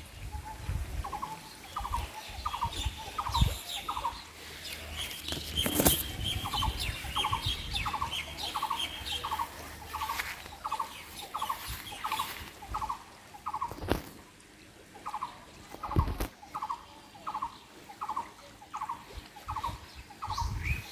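A bird calling one short note over and over, about two a second, with fainter twittering higher up in the first half. A few sharp knocks stand out, the loudest about six, fourteen and sixteen seconds in.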